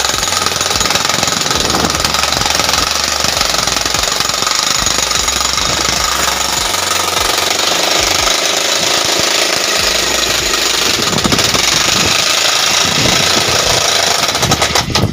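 16 kg corded electric demolition hammer (breaker) chiselling into rock, a loud continuous rapid hammering as the bit is pressed into the stone.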